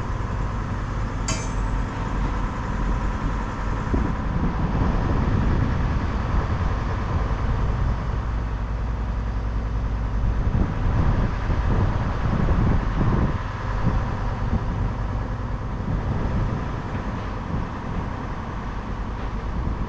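An engine running steadily at a low, even drone, with a sharp metallic clink about a second in.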